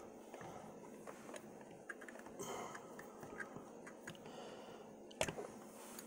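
Faint clicks and rustling as a steel padlock is handled and set into a small bench vise, with one sharper metal knock about five seconds in.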